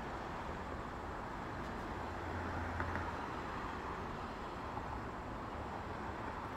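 Steady road traffic: cars passing on a multi-lane road, a constant hiss of tyres and engines that swells a little as vehicles pass about two to three seconds in.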